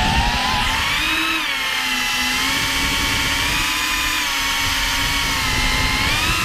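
FPV drone's brushless motors and propellers whining, pitch rising as it throttles up to take off, then wavering up and down with the throttle and climbing again near the end.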